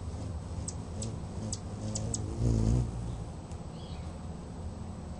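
Hummingbirds giving a run of sharp, high chip notes, about five in two seconds, then a brief low whirring hum of wings, the loudest sound, as the adult female flies in to the nest; a few faint high squeaks follow.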